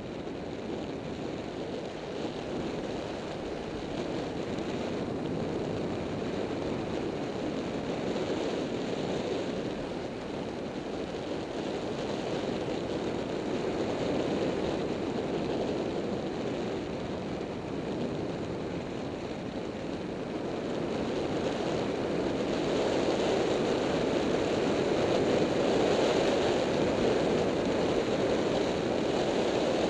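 Wind rushing over the microphone of a camera on a Yamaha FZ6-R motorcycle at road speed, a steady rush that buries the engine and grows louder about 22 seconds in.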